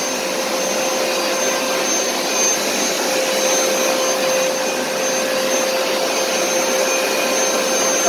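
Hoover SmartWash FH52000 upright carpet shampooer running steadily while it is pushed and pulled over carpet to wash and suck up a stain. Its motor gives a steady hum with a thin high whine over a rushing hiss.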